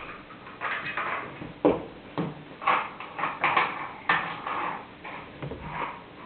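Toy cars and trains being pushed and knocked about on a toy track: irregular clatter with a few sharp clicks.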